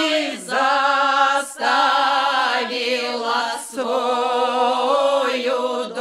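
Women's folk ensemble singing a traditional Cossack lyrical song a cappella, several voices together holding long, drawn-out notes. There are short breaks between phrases about half a second, a second and a half, and three and a half seconds in.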